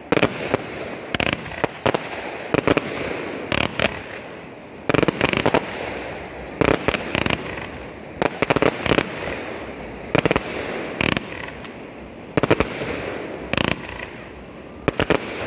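Fireworks display: aerial shells bursting in quick clusters of sharp bangs about once a second, over a continuous hiss.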